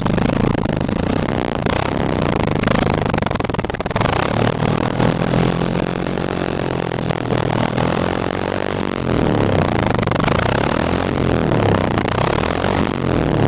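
Motorcycle engine running, its pitch rising and falling as the throttle changes.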